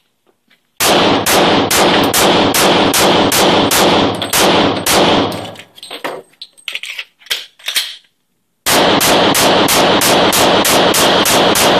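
.40-calibre Glock pistol fired in rapid semi-automatic strings, about three to four shots a second: a long string, a pause of about three seconds with a few small clicks of a magazine change, then a second long string. The pistol cycles through both magazines without a stoppage.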